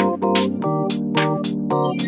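Background music with a steady beat and changing chords.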